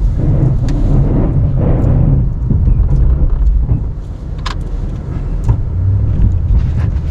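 Plow truck engine running with a steady low rumble under load as the plow blade shoves packed snow, with a few sharp knocks.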